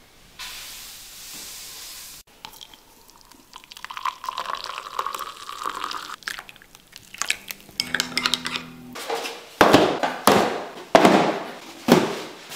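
Hot water poured from a kettle into a ceramic mug, then a few light clinks of the mug. These are followed by four loud thumps as cardboard boxes are set down and stacked on a wooden table.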